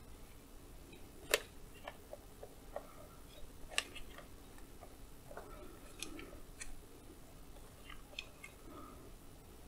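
Faint handling of a Kaiweets HT118A multimeter's rubber holster as the test leads are pressed into its clips: scattered small clicks and taps, the sharpest about a second and a half in and again near four seconds.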